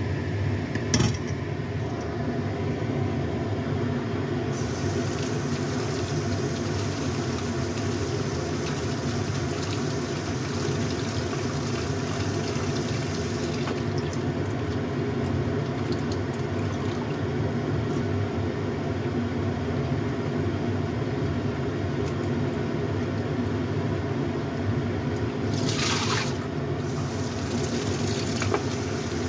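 Water from a kitchen tap running into a bowl while snow peas are swished and rinsed by hand: a steady rush of running water.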